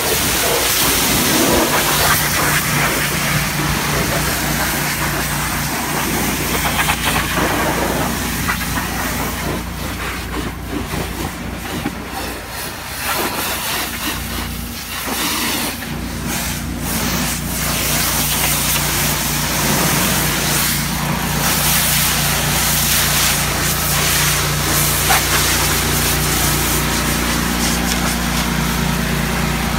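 Pressure washer running: a steady engine hum under the hiss of the water spray, which thins for a few seconds near the middle and then comes back.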